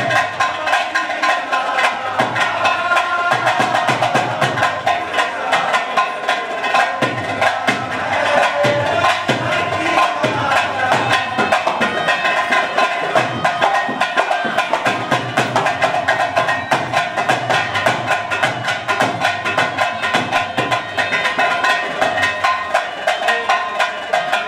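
Live folk dance music: a dholak drum beating a steady rhythm under a sustained melody line.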